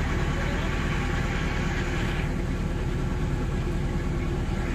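Crane truck's diesel engine running steadily, with a higher hiss over it that fades out about two seconds in.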